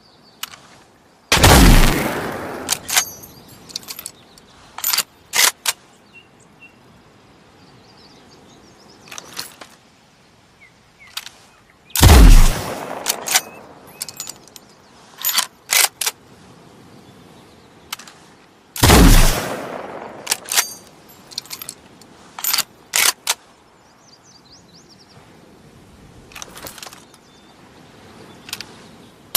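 Chassepot needle-fire bolt-action rifle firing three shots about ten and seven seconds apart, each followed by a long echoing tail, with groups of sharp metallic clicks between the shots as the single-shot rifle is worked and reloaded.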